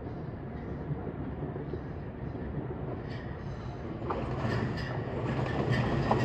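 Electric commuter train approaching on the track close below, its low rumble growing louder from about four seconds in, with a few wheel clicks near the end.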